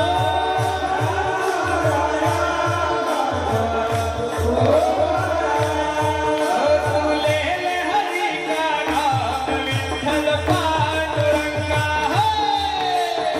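Kirtan devotional music: voices chanting a gliding melody over held drone notes, with a steady beat of drum, hand cymbals and a crowd clapping in time, about two to three beats a second.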